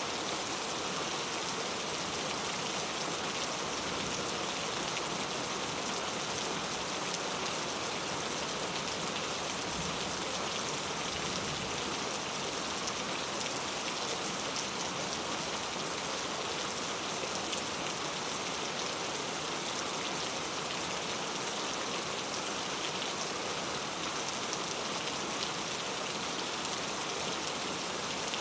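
Steady, even rain falling onto a puddle, a dense spray of fine drop impacts.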